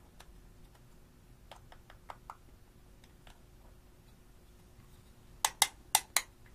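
Small scissors tapping and scraping in a compact of crumbled pressed eyeshadow, with faint scattered clicks. Near the end come four sharp, loud taps close together as the plastic compact is knocked against the glass plate to empty the powder.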